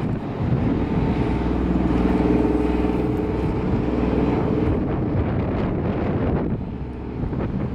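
A river patrol boat's engine droning steadily, which drops away about five seconds in. Wind buffets the microphone near the end.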